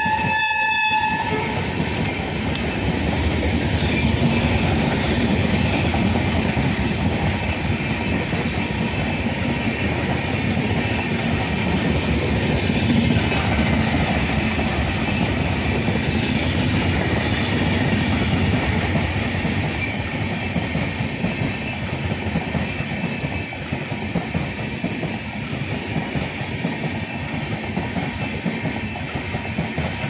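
Indian Railways express train passing at speed: the locomotive's horn sounds at the start and cuts off about a second in. After that come the loud, steady rumble and rattle of the coaches going by, easing a little in the last third.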